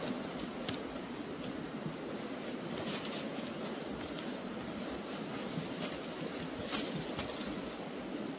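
Weeds pulled up by hand from dry garden soil: leaves rustling and roots tearing free, with scattered small crackles and snaps over a steady background hiss, the sharpest crackle late on.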